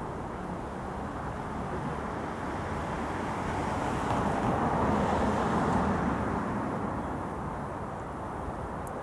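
Miniature railway train rolling past, a steady rumble of wheels on the track that swells to its loudest about halfway through and then eases off.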